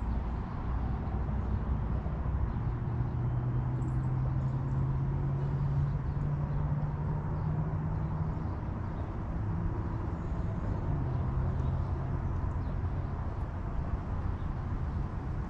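A low, steady engine hum over a constant rumble, strongest in the middle of the stretch, with a weaker return later on.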